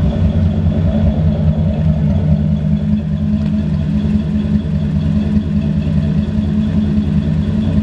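A 347 cubic-inch Ford small-block V8, a bored-and-stroked 302, idling steadily and evenly. It is heard from behind the car through its dual exhaust.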